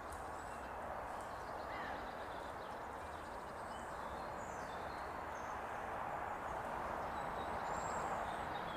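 Steady woodland ambience, an even hiss of air and trees, with a few faint high bird calls now and then.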